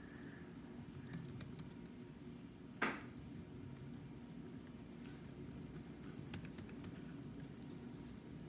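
Faint typing on a laptop keyboard: quick key clicks in two short bursts, one about a second in and a longer one from about five and a half to seven seconds in, with a single louder click near the three-second mark.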